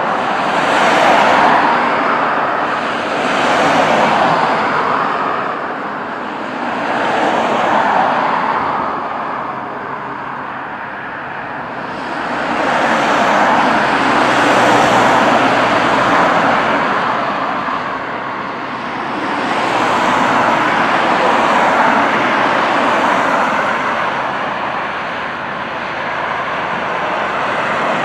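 Road traffic: cars passing close by one after another, each swelling and fading over a couple of seconds, in a near-continuous stream.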